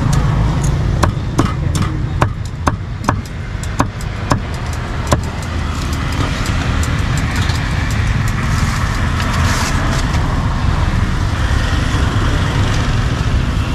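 A cleaver chopping grilled pork on a wooden chopping board: a run of sharp knocks, about two or three a second, for the first five seconds or so, lighter and sparser after that. A steady rumble of road traffic runs underneath.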